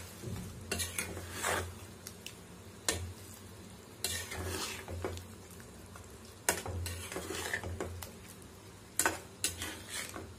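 Spatula stirring chicken in a thick yogurt masala in a nonstick pan, with irregular scrapes and knocks against the pan and sizzling from the low flame underneath.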